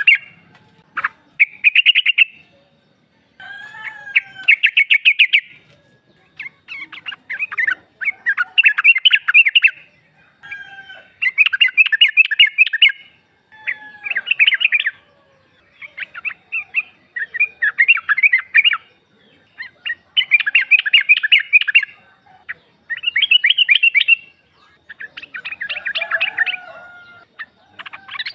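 Female sooty-headed bulbul (trucuk) calling to males: short bursts of rapid chattering notes, each about a second long, repeated about every two seconds.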